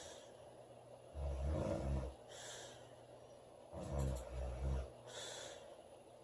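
A woman snoring loudly in a regular cycle: two low, rattling snores of about a second each, about a second in and again near four seconds, each followed by a short hissing breath.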